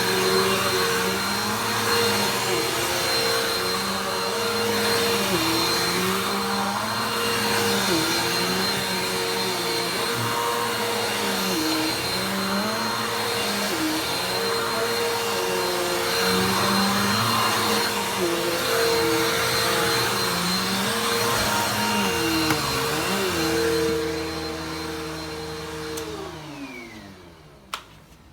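Vacuum cleaner running, its motor pitch dipping and recovering every second or two as it is worked. Near the end it is switched off and the motor winds down with a falling whine, followed by a single click.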